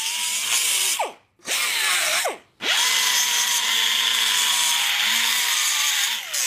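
Pneumatic cut-off tool with a small abrasive wheel whining at high speed as it cuts the heads off rust-seized bolts. It stops and spins back up twice in the first few seconds, then runs steadily.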